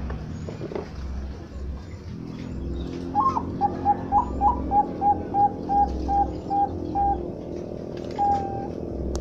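Bangkok-type zebra dove (perkutut) singing its cooing song: a couple of higher opening notes, then a run of about a dozen short, even coos, about three a second. A single longer coo follows near the end. A steady low hum pulses underneath.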